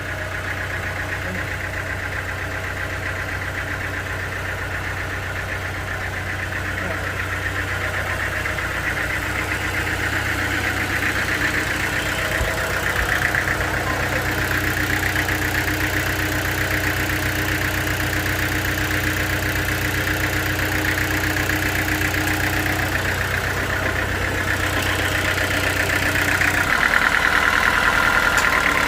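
Sawmill machinery running steadily: a continuous engine-driven hum with a higher whir over it, growing gradually louder.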